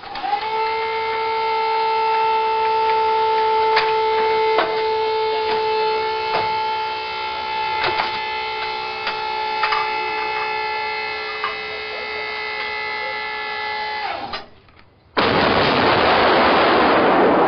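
A steady humming tone with several overtones, from a motor or electrical hum, runs for about fourteen seconds, then sinks in pitch and stops. After a short gap, a self-propelled howitzer fires: a loud blast that keeps rumbling to the end.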